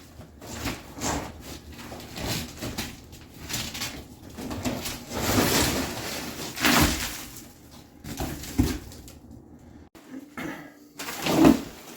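Irregular scraping and clattering of floor demolition: broken ceramic tile and old flooring being pried up and shifted.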